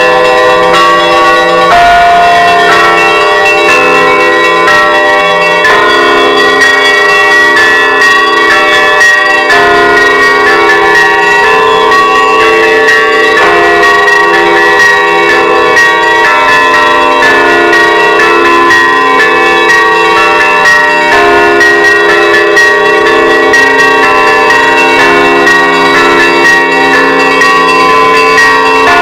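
Russian Orthodox church bells ringing a loud, continuous festive peal, the Easter trezvon: many bells of different pitches struck over and over, their tones overlapping and ringing on.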